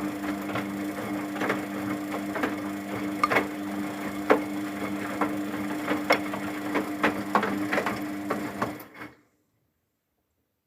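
Luxor WM 1042 washing machine running its softener rinse: a steady motor hum with irregular clicks and knocks from the turning drum. The sound cuts off abruptly about nine seconds in.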